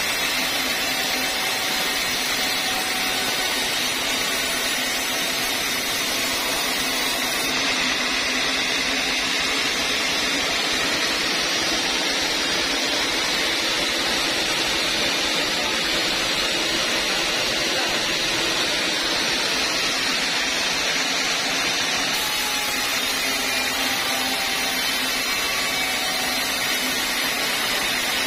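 Large band sawmill running steadily with its blade ripping lengthwise through a thick slab of old teak.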